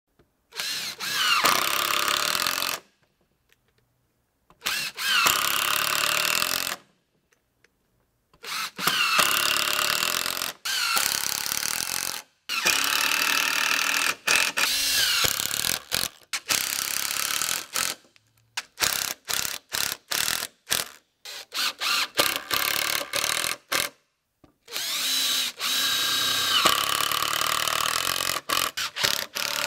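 Power drill driving construction screws into timber, in a series of separate runs. The motor's whine rises as it spins up at the start of many runs, and each run stops dead. In the middle stretch the trigger is blipped in many short bursts.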